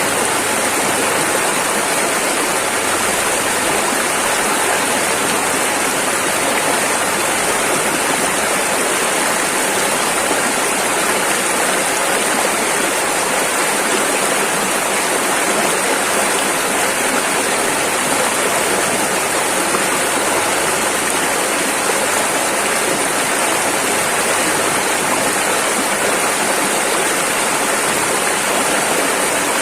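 Rushing river: fast water flowing over rapids in a steady, unbroken rush.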